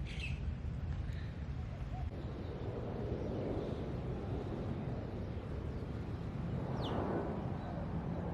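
Outdoor ambience: a steady low rumble, with a bird chirping once about seven seconds in.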